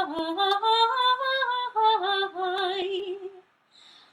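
A woman singing slowly in long, drawn-out notes, stopping about three and a half seconds in.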